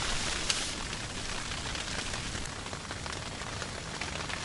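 Rain pattering steadily on the fabric of an ice-fishing tent, with one sharp click about half a second in.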